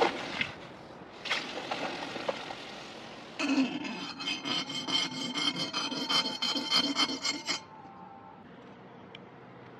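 A steel cleaver blade splashes in a bucket of liquid at the start. From about three and a half seconds, a thin metal rod scrapes across the steel blade in rapid scratchy strokes for about four seconds, then stops.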